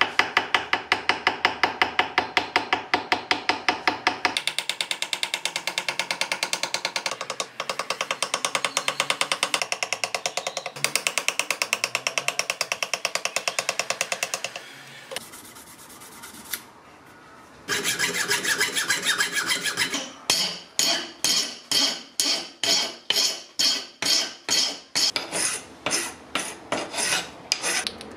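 Steel graver cutting letters into a small brass plate held in a vise: a fast, even run of short scraping strokes. About halfway through it pauses for a couple of seconds, then starts again and slows to about two strokes a second near the end.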